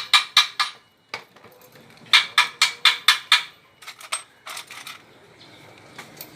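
Metal clinking: three short runs of sharp, ringing strikes, about four a second, with pauses between the runs.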